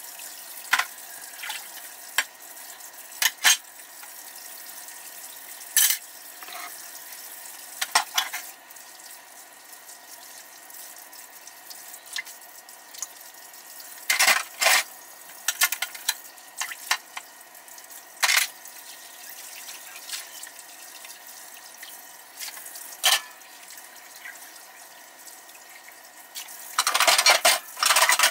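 Kitchen faucet running into a sink while dishes are washed by hand, with sharp clinks and clatters of dishes now and then, and a longer clatter near the end as a dish goes into the drying rack.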